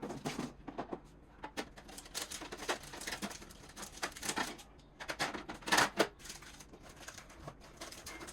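Groceries being handled and set on fridge shelves: irregular clicking, rustling and knocking of packages and containers, with a louder clatter about six seconds in.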